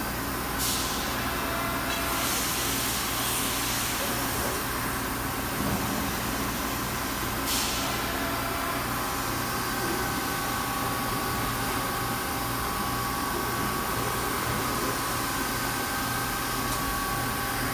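Steady machinery hum: a low drone with several held whining tones above it, broken by short hisses about a second in, around two to three seconds in and about seven and a half seconds in.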